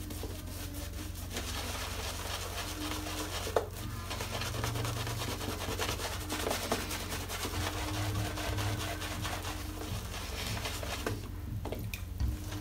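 Silvertip badger shaving brush scrubbing lather over a stubbled face: a soft, continuous scratchy rubbing, with one sharp click about three and a half seconds in. The scrubbing drops away near the end.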